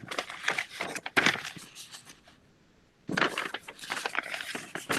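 Crackling, rustling handling noise in two stretches with a short silent gap near the middle, picked up by a microphone on a video call.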